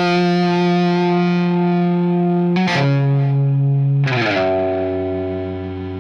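Closing of an indie rock song: distorted electric guitar holding sustained chords, with chord changes about two and a half and four seconds in, the last chord left ringing as the music fades out.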